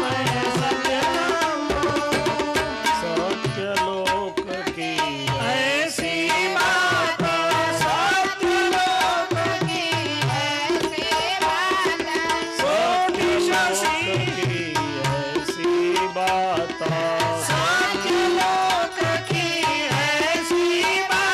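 Indian devotional music: tabla drumming a quick, continuous rhythm under a wavering melody line.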